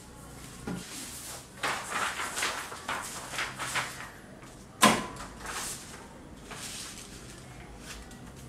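Sheets of paper rustling and shuffling as they are handled on a heat press platen, with one sharp knock near the middle.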